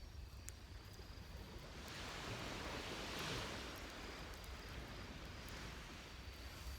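Waves washing on a beach, one wash swelling and fading about two to four seconds in, over a steady high insect trill, with a few faint crackles from a wood campfire.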